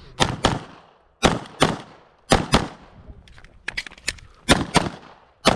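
Glock 17 9 mm pistol fired rapidly in a USPSA string, mostly in quick pairs of shots about a quarter second apart, with a pair roughly every second. Several fainter, quicker shots come about two-thirds of the way through.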